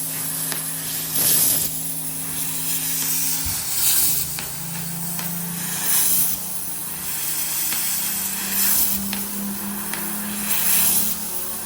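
1530 sheet-metal cutting machine with a 1.5 kW source running a cut: a steady hum that steps up and down in pitch as the drives move, with hissing that swells every two seconds or so.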